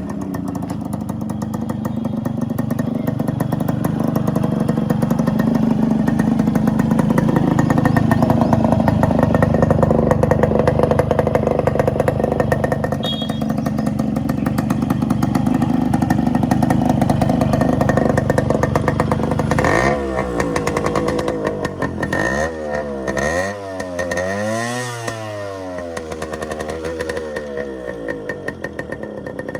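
Yamaha RX135 two-stroke single-cylinder engine running through its original stock muffler, holding fairly steady for most of the stretch. From about two thirds of the way in, it is revved up and down several times in quick blips.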